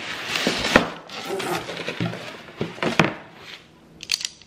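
Cardboard shipping box being opened by hand: the lid and flaps scraping and rubbing, with two sharp knocks, one just under a second in and one about three seconds in, then a few faint clicks as it quiets.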